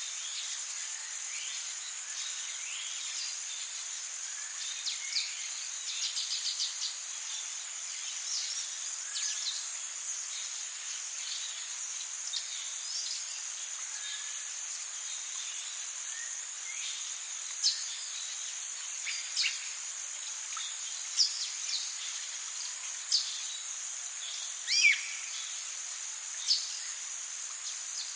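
Tropical rainforest insects keep up a steady high-pitched drone, with many short bird chirps and calls scattered over it. A handful of louder calls stand out in the second half.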